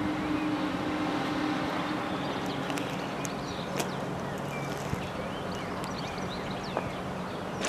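ÖBB class 5047 diesel railcar approaching, its engine a steady low drone, with a higher note that fades out over the first two or three seconds.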